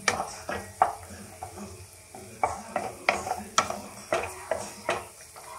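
Wooden spatula stirring and scraping onions, garlic and green peas in a nonstick kadai, knocking against the pan about twice a second, over a light sizzle of the vegetables frying in butter.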